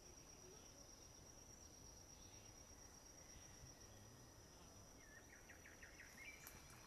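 Faint outdoor ambience: a steady high insect trill throughout, with a few short bird chirps near the end.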